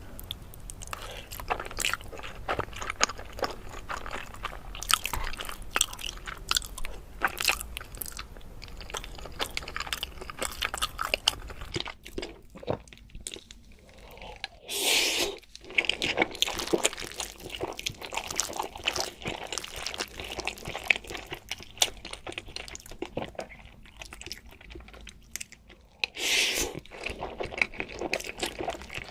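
Close-miked eating: a person biting and chewing crisp, crunchy food, with dense crackling crunches throughout and two louder crunchy bites about 15 and 26 seconds in.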